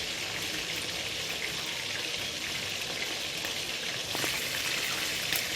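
Pan of tomato, onion, soy sauce and chili sauce sizzling steadily over the heat, with a faint tap about four seconds in.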